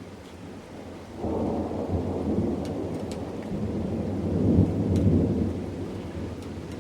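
A roll of thunder that breaks in suddenly about a second in, rumbles low, swells to its loudest a little past the middle and dies away toward the end, over light rain with a few scattered drop ticks.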